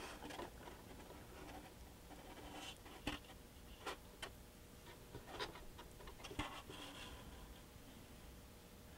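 Faint handling sounds at a hobby workbench: a handful of light clicks and taps from small parts and tools, spread over a few seconds of quiet room tone.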